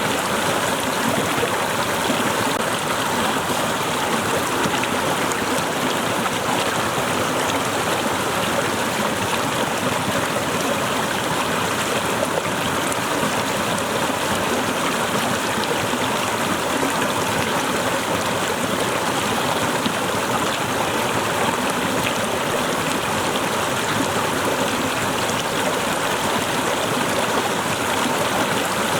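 Small waterfall running steadily, water splashing and rushing.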